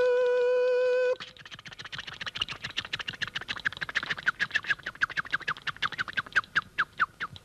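Barber's scissors snipping rapidly at hair, a quick run of sharp chirping snips several times a second, after a nasal honk about a second long at the start.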